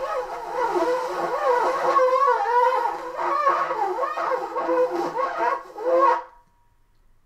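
Alto saxophone playing a solo melody, the notes moving and wavering in pitch; the playing stops about six seconds in.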